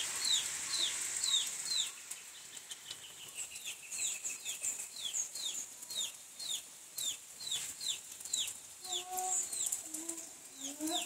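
Chicks peeping: a steady run of short, high, falling peeps, a few a second. A hen clucks a few times near the end, over a hiss of rain that is louder during the first two seconds.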